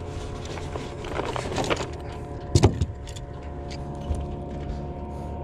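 Metal clinking and rattling as a handheld Rapala digital fish scale, with its chain and hook, is handled to weigh a bass, with a sharp knock about two and a half seconds in. A steady hum runs underneath.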